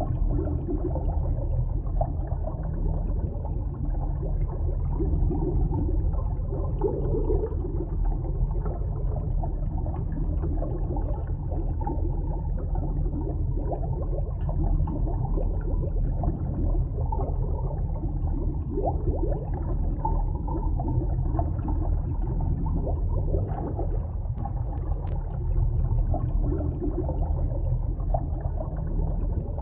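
Muffled underwater ambience: a steady low rumble of water with irregular gurgling.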